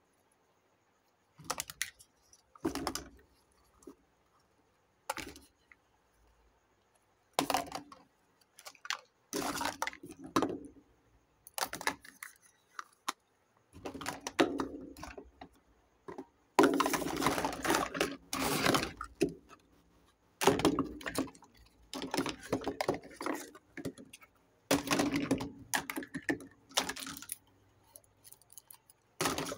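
Small plastic toy kitchen pieces clicking and clattering as they are handled and knocked against a heap of other plastic toys, in irregular bursts with short silent pauses. A longer run of rattling comes a little past the middle.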